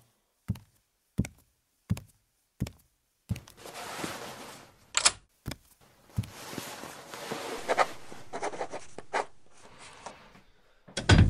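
Sound effects of a parcel delivery being answered. Four evenly spaced footsteps come first, then clicks and a long stretch of rustling. A loud thud sounds near the end.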